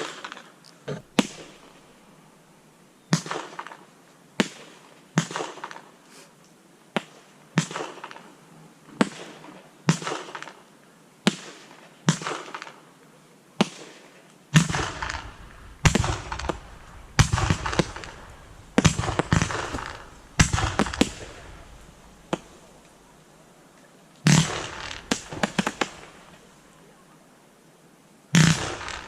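Fireworks going off in a steady series of sharp bangs, about one a second, each trailing off. From about halfway through the shots come louder, deeper and closer together. They pause for a couple of seconds twice near the end and then resume.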